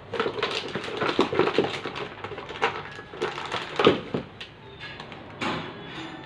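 Quick, irregular small clicks and crinkles of toppings being scattered and handled over the top of cake batter in a nonstick kadhai, with the loudest click about four seconds in and sparser ones after.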